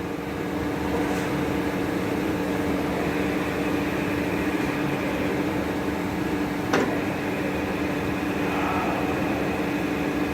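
Slideway grinder running with a steady hum. A higher steady tone joins about three seconds in, and there is a single sharp click about two-thirds of the way through.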